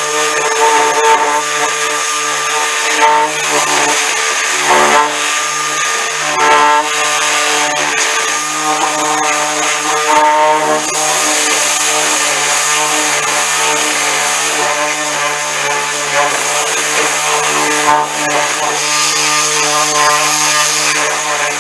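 Random orbital sander running steadily, its pad sanding the painted face of a steel tool box drawer. The tone flares briefly every few seconds as the sander is shifted on the metal.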